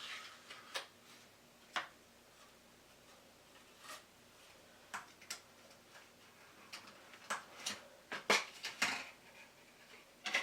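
Small processor packaging being handled and opened by hand: scattered soft clicks and rustles, with a busier run of louder clicks a little past halfway.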